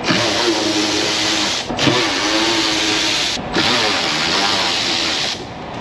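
Hand-held power driver running in three bursts with two short stops, backing out the Torx T25 wood screws that hold a car's wheel-well liner. Its motor whine is steady within each burst.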